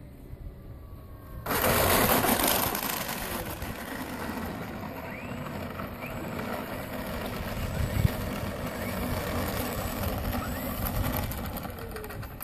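Electric motor and propeller of an FMS Olympus foam RC aerobatic plane whirring as it lands and taxis on asphalt, the wheels rolling over the rough surface. A loud rushing noise starts suddenly about a second and a half in and eases off over the next couple of seconds, with a few short rising whines of the motor later on.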